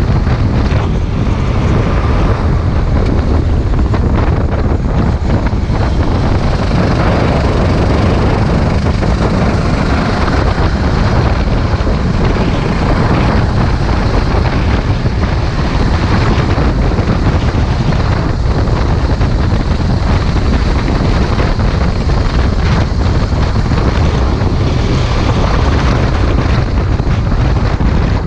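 Onboard sound of a Sodi RT8 rental kart at racing speed: steady wind buffeting on the microphone over the kart's engine running under load.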